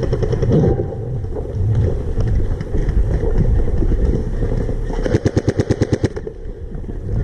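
Airsoft electric rifle firing full-auto: a brief burst at the start, then about five seconds in a rapid burst of roughly fifteen shots a second lasting just over a second. A constant low rumble sits on the microphone underneath.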